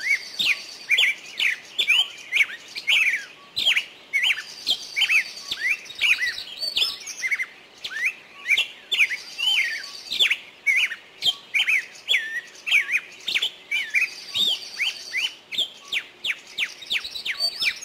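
Small songbirds chirping busily: many quick, high, downward-sweeping chirps, several a second, with a short buzzy trill about every five seconds.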